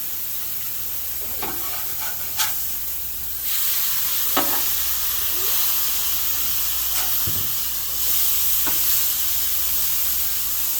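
Smash burger patties sizzling on a Blackstone flat-top griddle while they are flipped, with a few sharp clicks and scrapes of a metal spatula on the steel. The sizzle gets louder about three and a half seconds in and again near eight seconds.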